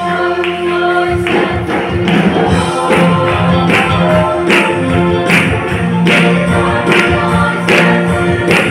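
Mixed choir of men and women singing a gospel song through microphones, over instrumental accompaniment with a steady beat of percussion strikes about twice a second.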